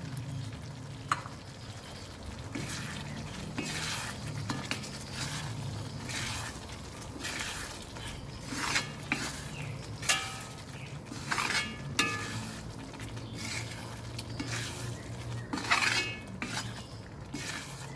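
Steel spoon stirring and scraping lemon pickle in a cast-iron kadai, with irregular clinks and scrapes against the pan. Under them runs a low sizzle of the lemons cooking in hot sesame oil.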